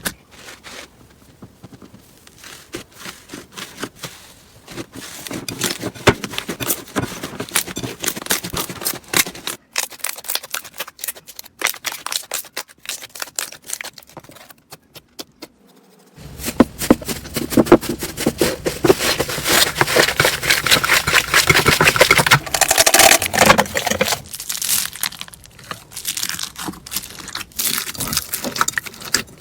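Crunchy slime being squeezed and poked by hand, giving dense, irregular crackling and popping. It turns much louder a little past halfway, then eases off near the end.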